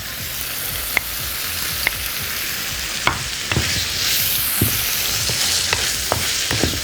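Sausage, tomatoes and garlic sizzling in a pan over high heat, with a steady frying hiss and sharp knocks of a utensil against the pan as the food is added and stirred.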